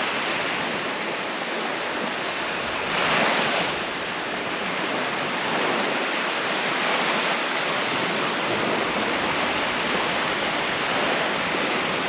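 Sea surf: a steady rush of breaking waves, with one wave swelling louder about three seconds in.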